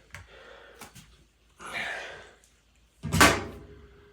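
Door-knob lock hardware being handled: a few light clicks, a short scraping rustle about two seconds in, and a sudden loud knock about three seconds in.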